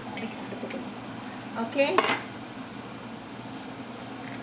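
Kitchen pot and utensils clinking: a few light clicks, then one louder metal clank about two seconds in, over a steady low hiss.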